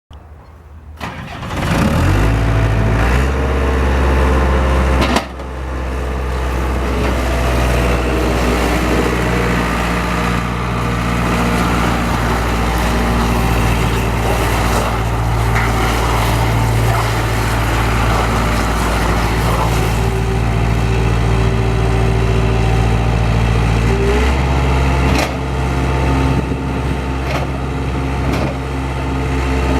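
Bobcat skid steer engine starting and then running steadily, with a brief dip in level about five seconds in and a change in engine speed about 24 seconds in.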